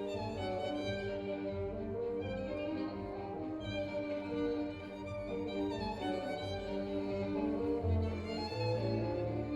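Recorded string music, with a violin line over lower strings, played back through a high-end stereo system built around a totaldac DAC and music server, heard as it sounds in the demo room.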